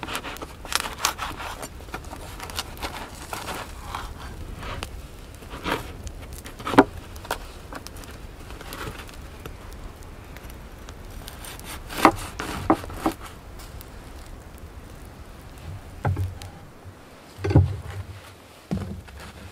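A knife sawing through the crisp crust of a round loaf of bread on a wooden board, with crackling, scraping strokes and a few sharp knocks against the board.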